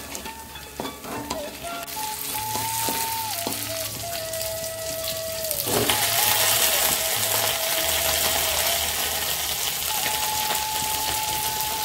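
Chopped chilies, shallots and garlic sizzling in oil in a steel wok, stirred with a wooden spatula that taps and scrapes a few times early on; about six seconds in the sizzle grows louder as water spinach goes into the hot wok. A simple flute-like tune plays in the background.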